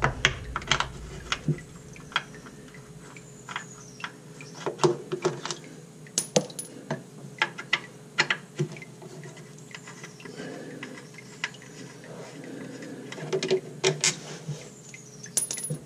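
Irregular small metallic clicks and clinks of an L-shaped Torx key working a transmission pan bolt, coming in a few short clusters.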